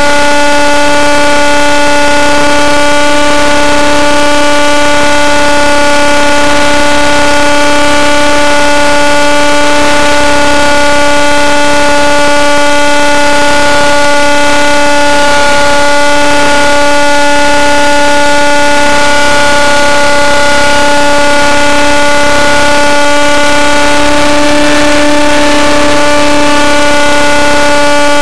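RC helicopter's new engine and rotor running loud and close, a steady whine held at an almost even pitch while the helicopter flies.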